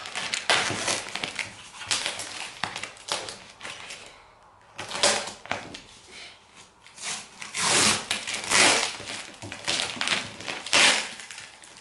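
Brown paper packing tape being ripped and peeled off a cardboard box in a series of irregular tearing and crinkling bursts. The longest, loudest rips come about two-thirds of the way through.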